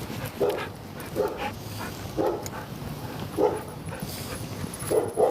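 A dog giving short barks, about six in a row at uneven gaps of roughly a second.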